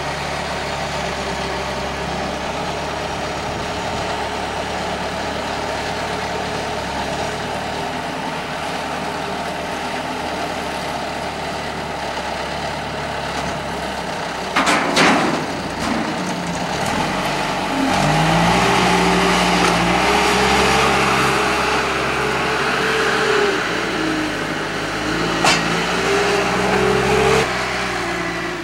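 Skid-steer loader's diesel engine running steadily while the grapple carries a log, with a loud knock about halfway through. From about two-thirds of the way in the engine speeds up and works under load, its pitch rising and falling, with another knock shortly before the end.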